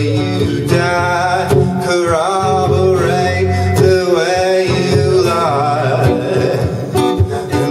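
A man singing long, gliding notes while strumming an acoustic guitar in a steady rhythm.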